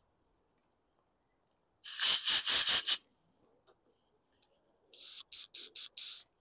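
Compressed-air blow gun hissing: a loud, pulsing blast of about a second, then five short, quieter puffs near the end.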